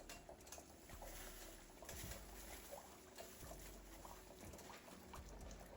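Faint sizzling and scattered crackling of a piece of battered fish frying in hot bacon grease.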